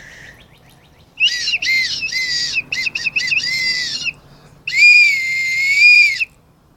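A child whistling loudly, high and shrill: a run of short broken notes, then one long held note near the end.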